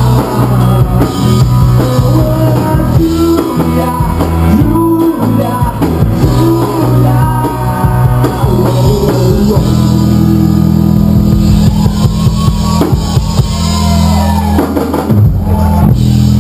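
Live rock band playing: lead vocals over electric guitar, bass guitar and drum kit.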